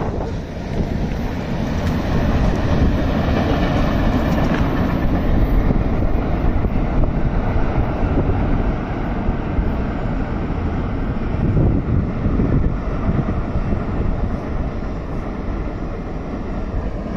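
Steady wind rumble on the microphone from riding in an open vehicle, mixed with the running noise of a freight train pulling away.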